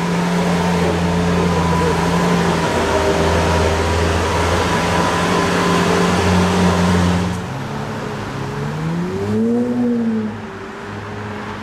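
A car engine running steadily, then a short throttle blip about nine seconds in, its pitch rising and falling back.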